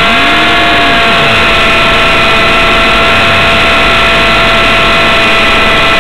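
450-class RC helicopter's motor and rotor heard from a camera mounted on the helicopter: a loud, steady whine made of several held tones over a rushing noise.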